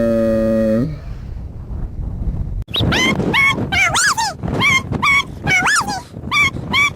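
A dog whimpering and yipping: a quick run of short high whines, each rising and falling in pitch, beginning about three seconds in. Before that a low held note breaks off within the first second.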